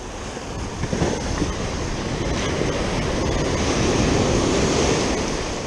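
Ocean surf breaking and washing up the beach, building over the first few seconds and easing near the end, with wind buffeting the microphone.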